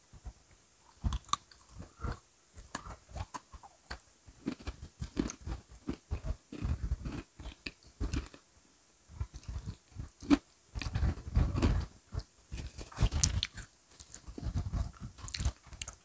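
Crunching and chewing of Oreo cookies: irregular crisp bites and munching, busiest and loudest about two-thirds of the way through.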